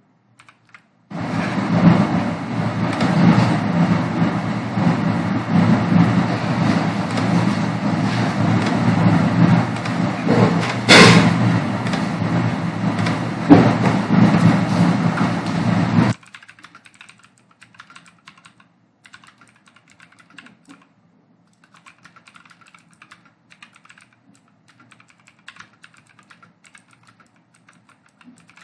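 Typing on a computer keyboard: key clicks under a loud, continuous rumbling noise for about fifteen seconds. The noise cuts off abruptly, and after that only faint, scattered keystroke clicks remain.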